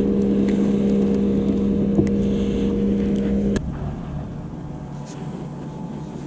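Electric trolling motor humming steadily on a boat, then switched off with a click about three and a half seconds in, leaving only faint background noise.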